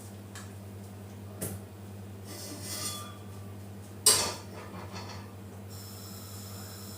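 Kitchenware being handled over a steady low hum: a small click, a short scrape, then one sharp clank about four seconds in, as of a dish or utensil set down hard.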